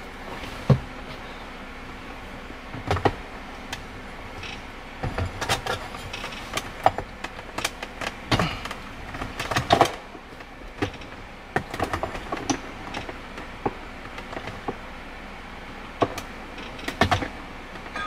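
Cliq Tuning short shifter in a 1986 BMW E30 being moved and handled by hand as it is mocked up: a string of irregular clicks and knocks, the loudest about a second in, around the middle, and near the end.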